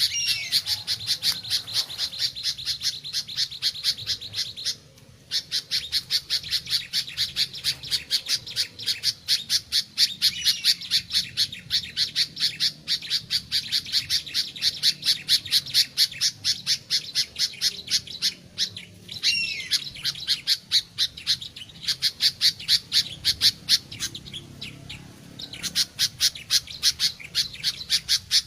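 Sooty-headed bulbul (kutilang) calling: a fast, even run of short sharp chirps, with a few slurred falling whistles mixed in. The run breaks off briefly about five seconds in and again near the end.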